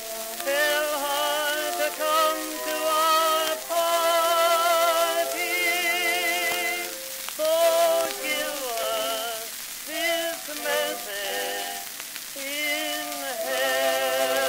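Tenor singing with a wide vibrato over an orchestra, played from a 78 rpm shellac disc, the sound thin with no low bass. A steady crackle and hiss of record surface noise runs underneath.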